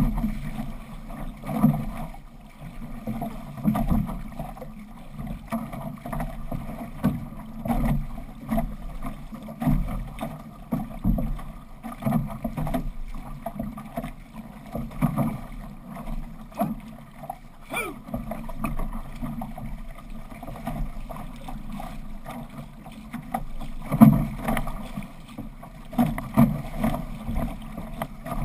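Six-person outrigger canoe under paddle: water rushing and slapping against the hull, with a low surge about every one to two seconds as the crew's paddle strokes drive the boat.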